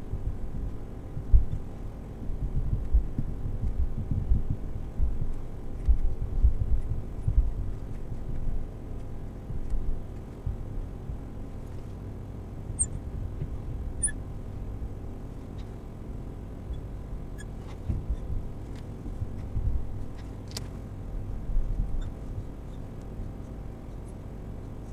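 Soft, uneven low thuds and rumble from movement while writing with a marker on a glass board, with a few faint clicks.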